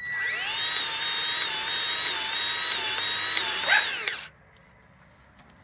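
Motor of a powered grease gun whirring for about four seconds as it pumps fresh grease through a grease nipple into a linkage joint, pushing out the old grease. It winds up at the start, wavers a little in pitch under load, and cuts off with a short falling whine.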